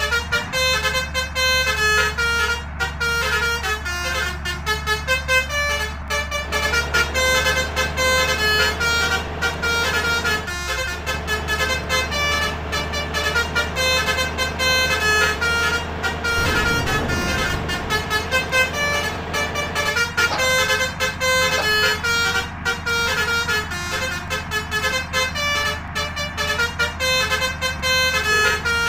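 Basuri 'telolet' horn, an electric multi-trumpet vehicle horn, playing a tune in quick stepping notes over and over, over the low steady running of a vehicle engine.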